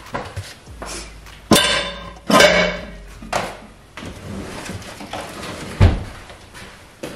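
Used plate and metal spatula being set down with clatters: a sharp clack about one and a half seconds in, a longer ringing clatter just after, a lighter knock, then a dull thump near the end.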